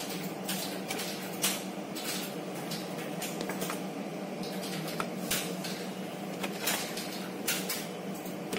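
Handling noise of a stiff 4 mm PVK conveyor belt sample being bent in the hand and set down on a table: irregular scrapes, rustles and light knocks over a steady low hum.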